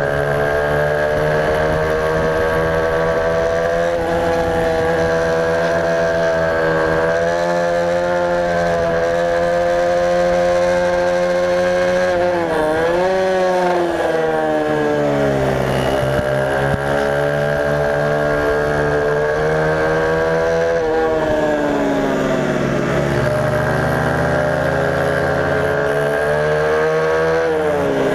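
Small race motorcycle's engine, heard onboard, held at high revs down the straights. Its pitch drops and climbs back up a few times, around 12 s, 15 s, 22 s and near the end, as it slows for corners and accelerates out.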